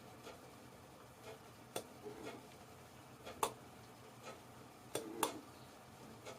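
Failing hard disk drive clicking, a sharp click about every one and a half seconds with two close together near the end, some followed by a short warbling whir: the abnormal noise of a worn-out drive.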